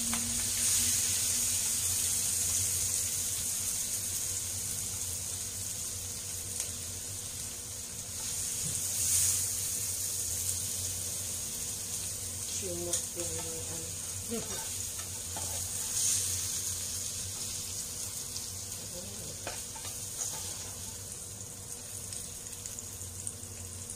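Beef ribs and onions sizzling in a hot pan while a spatula scoops and scrapes them out, with scattered clinks and scrapes of the spatula against the pan.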